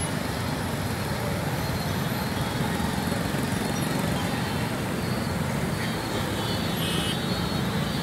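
Steady road traffic of motorbikes and cars circling a roundabout, with a short horn toot near the end.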